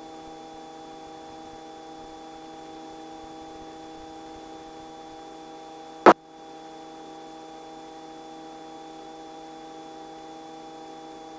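Steady electrical hum and light hiss on a helicopter's headset intercom audio feed, made of several fixed tones, with one sharp click about six seconds in.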